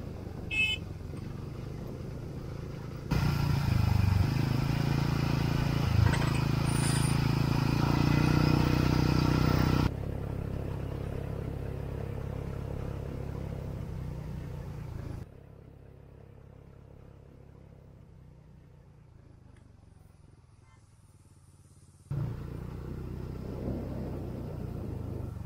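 A road vehicle's engine running steadily on the move. It comes in several segments that switch abruptly between louder and quieter stretches, about 3, 10, 15 and 22 seconds in.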